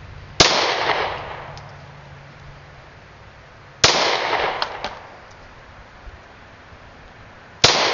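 Three single shots from a Ruger SR9 9mm semi-automatic pistol, spaced about three and a half seconds apart in slow aimed fire, each a sharp crack followed by about a second of echo.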